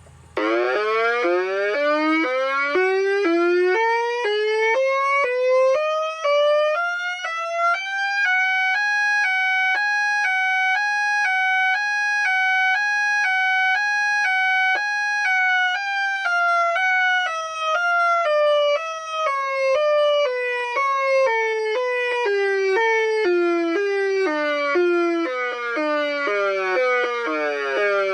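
Homemade electronic tornado siren, an Arduino-generated tone through a PA amplifier and speaker, sounding an alternating two-tone wail. It is loud. The two pitches switch back and forth a few times a second while together they slide up over several seconds, hold steady, then slide back down near the end, where the siren cuts off abruptly.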